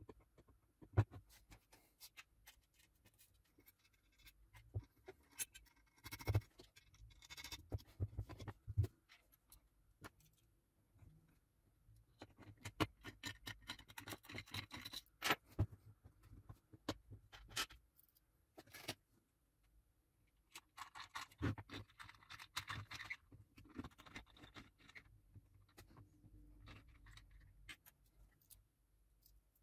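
Faint, scattered clicks and taps with a few stretches of scraping: small parts and casing of a Metcal MX-500P soldering station being handled and fitted back together during reassembly.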